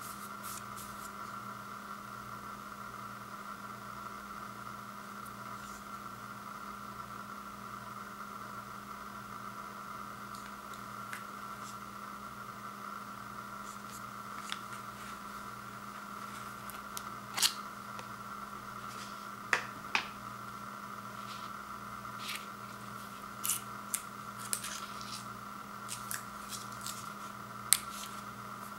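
Steady hum with a paperboard ice cream pint being handled: scattered sharp clicks and taps from the second half on, the loudest as the lid is worked off the carton.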